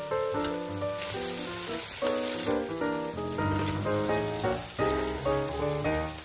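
Razor clams sizzling in hot olive oil with garlic and parsley on a grill pan, a steady hiss that grows a little stronger about a second in. Background music with quick changing notes plays over it.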